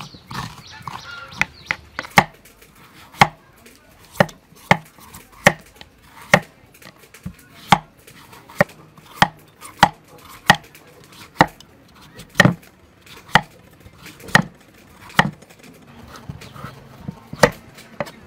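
Knife chopping through melon slices onto a wooden chopping block: a steady run of sharp chops, roughly one a second.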